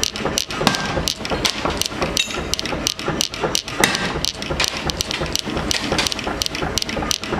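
Power hammer striking a handled top tool held on red-hot steel, a fast, even run of metallic blows at about five a second.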